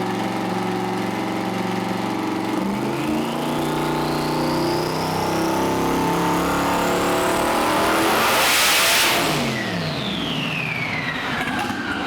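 Twin-turbo LS V8 engine revving up on the dyno, with a high turbo whistle climbing steadily for several seconds. About nine seconds in, a loud rush of air is vented as boost is released, and the turbos whistle down as the engine comes off.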